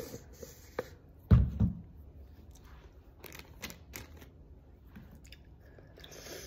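Handling sounds at a kitchen counter: a dull thump about a second in, then a few light clicks and taps.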